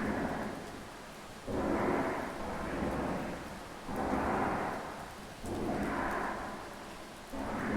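Rumbling noise in regular swells about every two seconds, each starting abruptly and fading away, presented as a strange sound coming from the sky.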